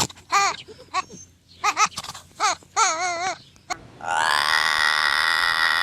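A pet animal's crying calls: several short cries that bend in pitch, one of them wavering, then about four seconds in one long, steady, high-pitched cry.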